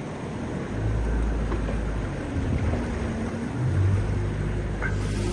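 Boat engine running under way, its low drone rising as the throttle opens about a second in and again near four seconds, over wind and sea noise.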